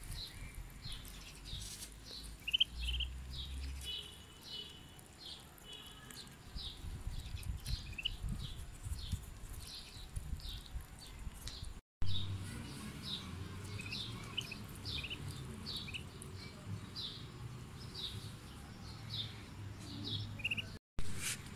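Muscovy ducklings peeping as they feed, a steady string of short high peeps about two a second.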